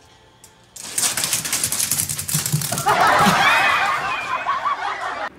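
A cat and a small dog scuffling: claws scrabbling fast on a wood floor in a rapid clatter. About halfway through, high, wavering squeals rise over it. It all cuts off suddenly.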